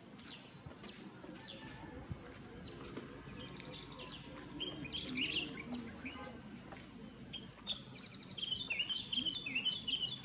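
Birds chirping: short, high chirps throughout, with a quick burst about halfway through and a busier, louder run of chirps near the end.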